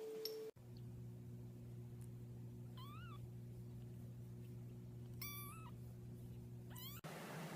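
A very young ginger kitten meowing: a short high call about three seconds in, a longer, steadier one about two seconds later, and a brief rising one near the end. A steady low hum runs under the calls.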